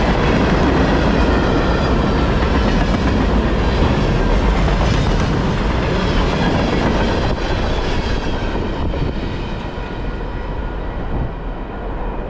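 Freight cars of a CPKC train (tank cars, boxcars and a flatcar) rolling past on steel rails, wheels running over the track. The sound eases from about seven seconds in as the last cars go by.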